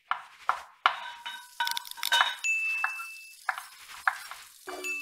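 Sound effects of an animated channel logo: a quick string of sharp clinks and taps, each with a short ring, with two brief high dings, one in the middle and one near the end.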